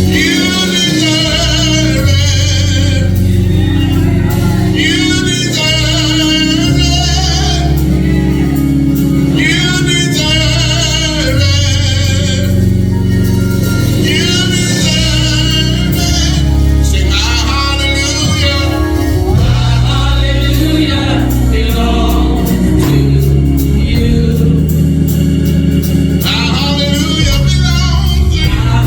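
Live gospel worship song: singers hold long, wavering phrases over band accompaniment with a steady bass line.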